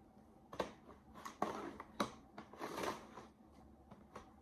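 Giant plastic Rubik's cube being turned by hand: a few sharp plastic clacks over the first two seconds as layers are twisted, with softer sliding and scraping between them.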